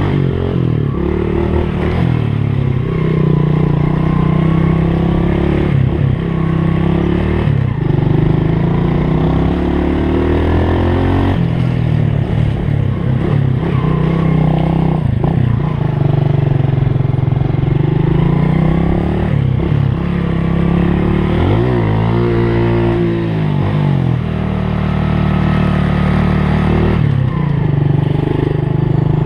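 Trail motorcycle engine under load, its pitch rising and falling over and over as the throttle is opened and eased off, with a quick rev and drop near the end.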